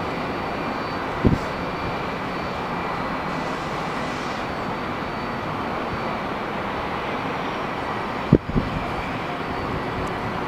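Boeing 757-200 jet engines running at taxi power, a steady rushing noise with a faint high whine. Two brief low thumps, about a second in and near the end.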